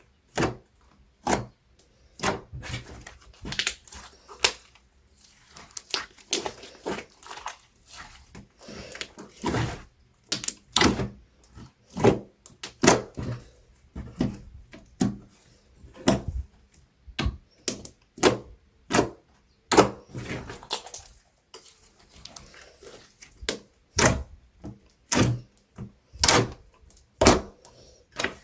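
Slime being handled, squeezed and stretched: an irregular string of sharp clicks and pops, about one or two a second, with quieter squishing between them.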